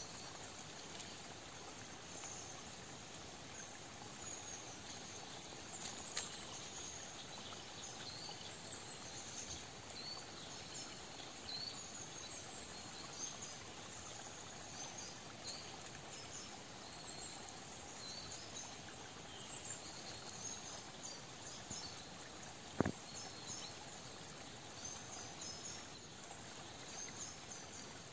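Faint outdoor nature ambience: a steady soft hiss with many short, scattered high chirps throughout. One sharp click about three-quarters of the way through.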